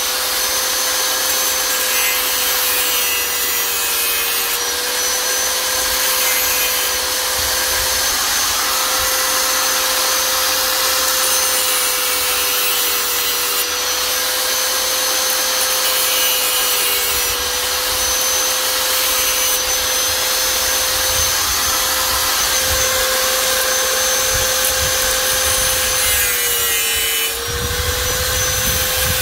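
A small electric power tool running continuously: a steady motor whine that dips slightly in pitch a few times, over a rough rasping noise.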